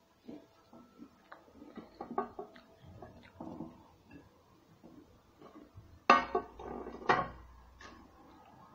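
A person eating crunchy chicheria snacks: small clicks and handling clatter, then two loud crunchy bites about six and seven seconds in.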